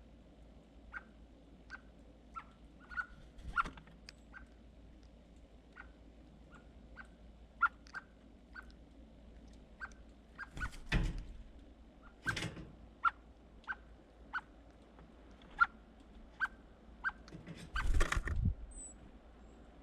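Birds at close range: an irregular run of short, sharp ticks, about one or two a second, with louder thumps or flutters about halfway through and again near the end.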